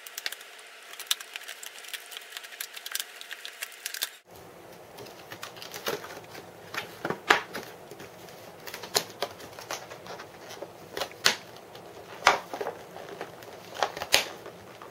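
Scissors cutting through a hard plastic clamshell blister pack, then hands bending and prying the stiff plastic apart: irregular sharp clicks and crackles.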